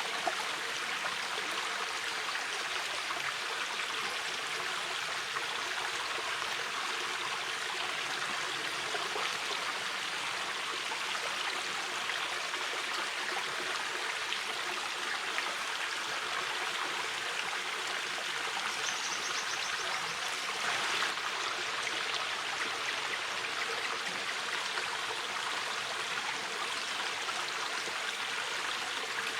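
Mountain river flowing steadily: an even, unbroken rushing of water.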